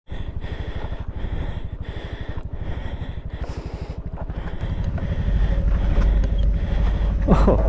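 Motorcycle engine running with a fast, even firing pulse, growing louder from about five seconds in. A falling swoosh sounds near the end.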